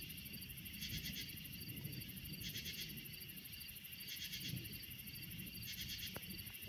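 Night insects calling: a short rasping call repeats about every second and a half over a steady high trill, with a faint low rumble underneath.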